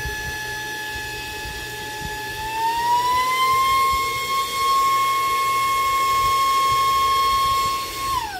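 Saker mini cordless vacuum's brushless motor running in blower mode, a steady high whine that rises in pitch about two and a half seconds in and holds there. Near the end it drops quickly in pitch as the motor winds down.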